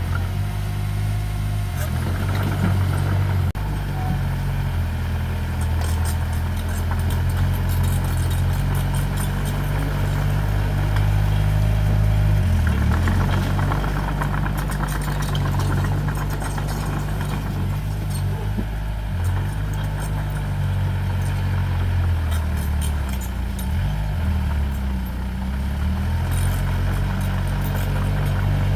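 Heavy earthmoving machine's diesel engine running steadily, its pitch dipping and recovering briefly about twelve seconds in and again near twenty-four seconds as engine speed changes, with faint scattered clicking over the top.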